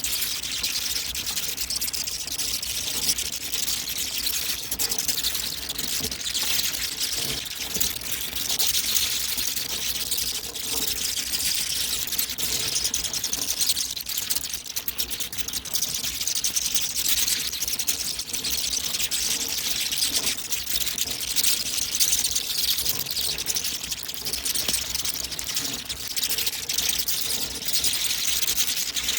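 A large colony of bats streaming out of a cave: a dense, steady mass of high-pitched chittering and rapid clicks.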